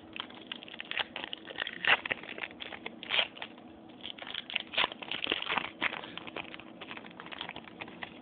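Foil wrapper of a 2011 Certified football card pack crinkling and tearing as it is ripped open by hand. The crackling comes in irregular bursts, loudest about two and three seconds in and again around five seconds in.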